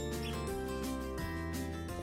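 Background music: strummed instrumental chords with a steady beat.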